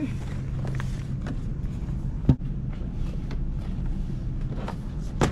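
Cardboard boxes of trash bags being handled on a store shelf beside a plastic shopping cart: a few knocks and taps, the loudest about two seconds in, over a steady low hum.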